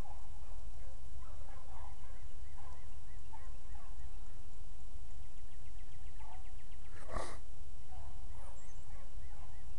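Pack of beagle hounds baying in short, scattered cries while running a rabbit's track. A single sharp knock about seven seconds in.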